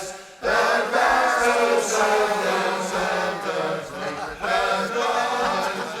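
A group of voices singing together in a choir, with a brief drop-out about half a second in. No words are clear enough to make out.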